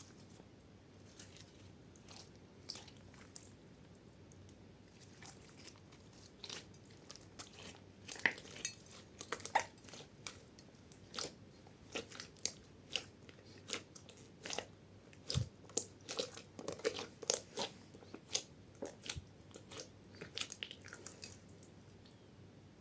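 Slime being squished and worked by hand, giving a run of short sharp crackles and pops. They are sparse at first and come thick and fast from about a third of the way in.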